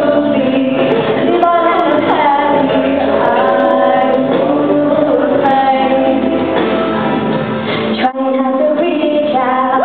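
Two girls singing into handheld microphones over backing music, the sound carrying through a large hall. The sound drops out for a moment about eight seconds in.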